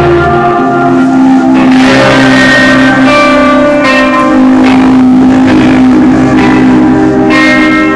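Live band music, loud and steady, with guitars holding long sustained notes.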